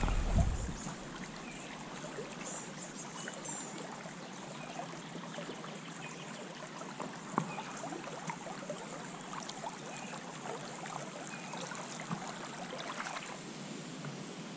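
Steady hiss of river water flowing, with small clicks and one sharp tap about seven seconds in, and a few faint high chirps. A low rumble on the microphone in the first second.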